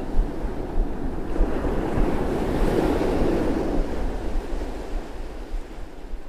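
Surf breaking and washing up a sandy beach, with wind buffeting the microphone. The wash swells about two to three seconds in and fades toward the end.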